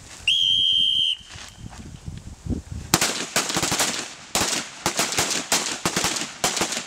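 One long whistle blast near the start, then about three seconds in a ragged volley of rifle shots from several shooters firing together, many quick, irregular shots running on for several seconds.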